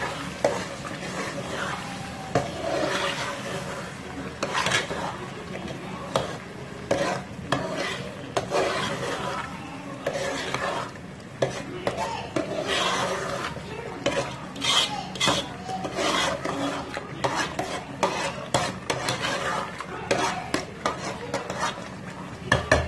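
A metal spoon stirring and scraping thick tomato stew in a metal saucepan, with frequent clinks of the spoon against the pan, as tinned tomato paste is worked into the sauce. A low sizzle from the cooking sauce runs underneath, and a couple of sharp knocks of the spoon come near the end.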